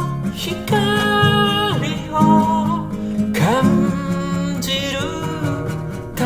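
A nylon-string (gut-string) classical guitar played as accompaniment while a voice sings a slow melody, with held notes that slide between pitches.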